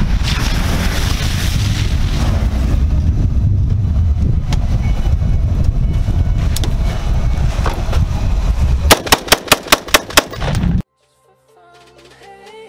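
A steady low rumble, then a rapid string of about eight rifle shots from an AR-15, four to five a second. The shots cut off suddenly.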